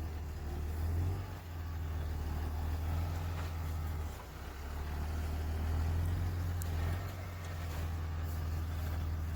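A vehicle engine running steadily with a low, even hum that dips briefly twice.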